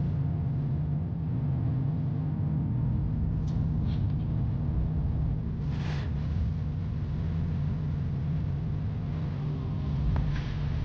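Steady low rumble of a car's engine and tyres on tarmac, heard from inside the cabin while driving at a steady speed. A short hiss comes about six seconds in.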